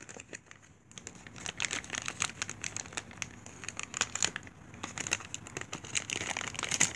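Clear plastic packaging bag crinkling and crackling as it is handled, a busy run of sharp crackles starting about a second in.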